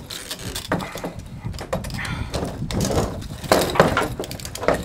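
Hard plastic parts of a car fuel pump module being twisted and handled: a string of irregular clicks, knocks and rattles as the filter housing is worked loose.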